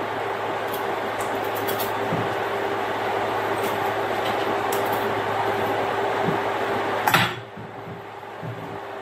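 A turnip being peeled by hand with a paring knife, with faint small clicks of the blade, over a steady motor hum. About seven seconds in, a sharp knock, and the hum cuts off.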